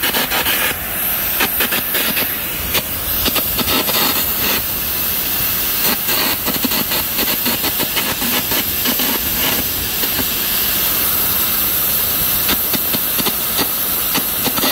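Electric arc welding on a vertical joint of a structural steel column connection: a steady, dense crackle and hiss from the arc.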